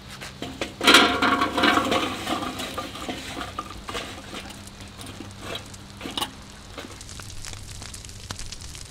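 Lit charcoal briquettes poured from a metal chimney starter into a Weber kettle: a loud rattling clatter about a second in that tails off over a couple of seconds. Then the hot coals crackle and hiss steadily, with a short knock near six seconds.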